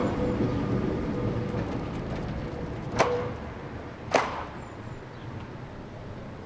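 Trams running on street track: a low rumble dying away, broken by two sharp metallic clacks of wheels over rail joints, about three and about four seconds in, each ringing briefly.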